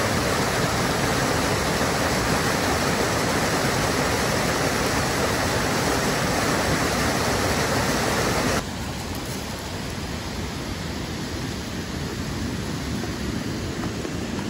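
Mountain stream cascading over boulders, a loud steady rush of white water. About two-thirds of the way through, the rushing drops to a lower, steady level.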